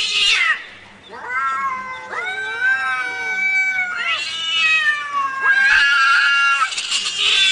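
Two cats caterwauling at each other in a standoff before a fight: long, overlapping yowls that waver up and down in pitch, turning harsher and louder about four seconds in and again near the end.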